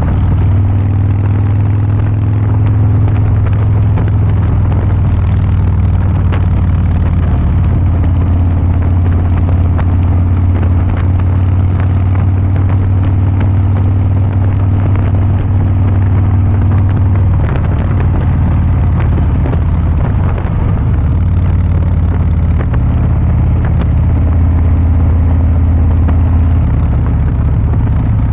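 Harley-Davidson Breakout 114's 1868 cc V-twin idling steadily through a Kesstech valved exhaust, a deep, heavy exhaust note.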